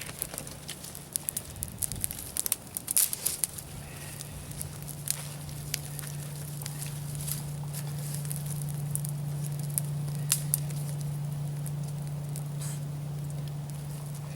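Damp tinder bundle catching fire from a bow-drill coal: sharp crackles and pops, thickest in the first few seconds, with a low steady rumble swelling from about four seconds in as it burns.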